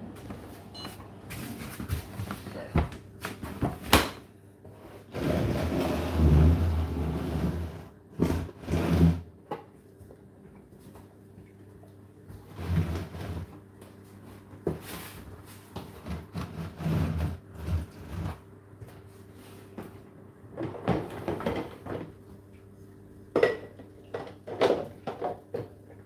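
Whirlpool dishwasher being opened after its cycle: the door and the wire racks clunking and rattling, with dishes knocking in the racks, in a run of separate knocks and one longer rush of noise about five seconds in.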